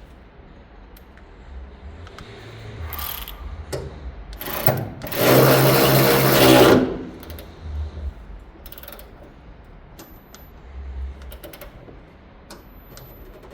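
Parkside PAR 4 A1 4 V cordless ratchet's motor running in one loud steady burst of about two seconds near the middle, with shorter spurts before it and scattered mechanical clicks and handling noises after.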